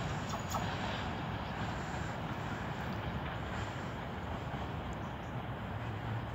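Diesel locomotive running at a distance, a steady low rumble that slowly fades, with a few faint clicks near the start.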